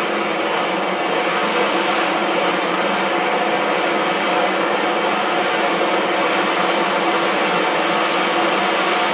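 MAPP gas hand torch burning with a steady hiss while it heats a seized screw to loosen it.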